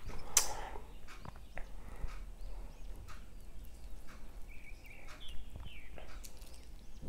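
Close-miked eating sounds: a sharp knock about half a second in, then scattered small clicks and smacks of chewing.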